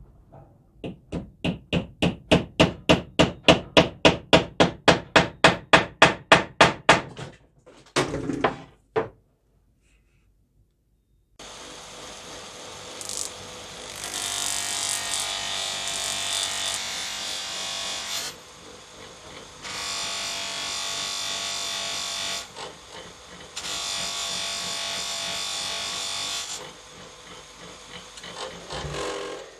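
A polished steel hammer head rubbed hard with a cloth in quick back-and-forth strokes, about four a second, growing louder. After a short pause a bench-grinder buffing wheel runs steadily, with the hammer pressed against it in three longer spells that bring a louder hiss.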